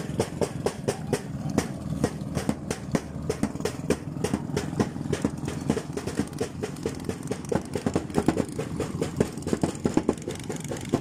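Small boat engine running steadily, with many sharp, irregular knocks and slaps, several a second.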